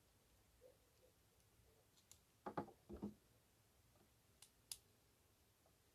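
Near silence with a few faint handling clicks and knocks: a short cluster about halfway through and two sharp ticks near the end.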